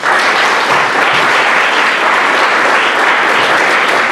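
Audience applauding, starting all at once and holding steady.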